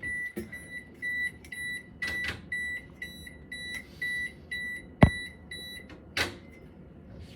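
Refrigerator door-open alarm beeping: short, even, high-pitched beeps about two and a half times a second, which stop about six seconds in. A sharp knock about five seconds in is the loudest sound.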